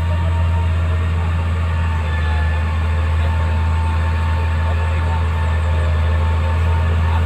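Motor grader's diesel engine running with a steady low drone as the machine drives over a mound of loose soil.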